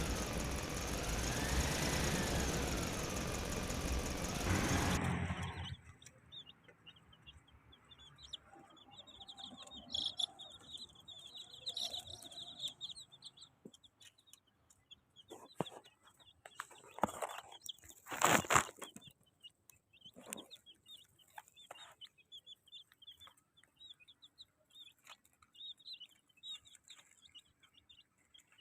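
A loud, noisy sound with a wavering whistle-like tone cuts off about five seconds in. Then baby chicks peep, with many short high cheeps, and scattered knocks that are loudest a little past the middle.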